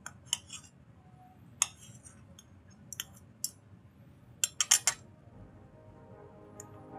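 Stainless knife and fork clinking and scraping against a ceramic plate while cutting chicken: scattered sharp clinks, then a quick run of four about four and a half seconds in.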